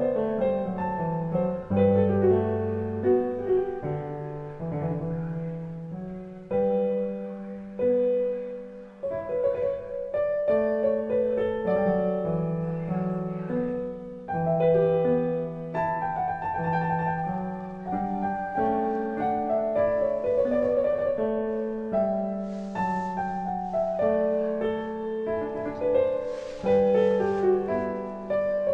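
Background solo piano music playing a slow, gentle melody with sustained notes.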